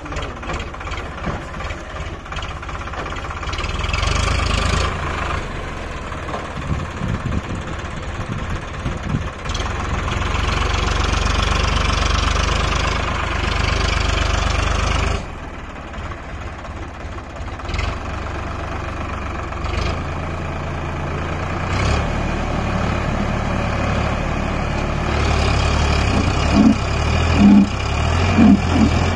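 Tractor diesel engine running under load, growing louder and easing off in stretches, with a sudden drop in level about halfway through. A few short loud sounds come near the end.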